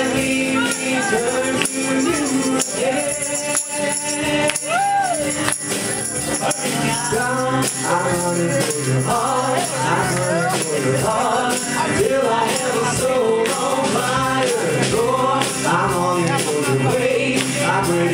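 Live church worship band playing an upbeat praise song: acoustic guitar and drum kit with singing voices, the singing fuller from about seven seconds in.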